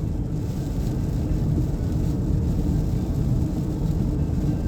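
Steady engine and tyre noise inside the cabin of a Nissan Pathfinder driving along the road, a low, even rumble.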